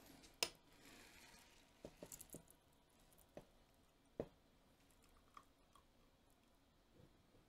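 Mostly quiet, with faint scattered clicks and light knocks from a metal cocktail shaker, ice and a glass being handled as the cocktail is strained into the glass; the clearest clicks come about half a second in and about four seconds in.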